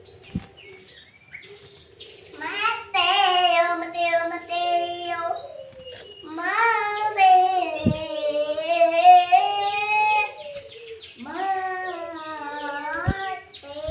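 A high voice, most like a child's, singing three long phrases of held, wavering notes, with a few soft low thumps between them.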